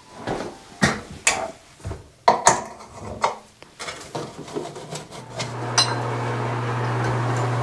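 Metal reflector and grille of a ceiling fan-light fixture clinking and knocking as it is fitted into place. About five seconds in, a steady low hum with an airy rush starts: the NuTone bathroom exhaust fan running on its new motor.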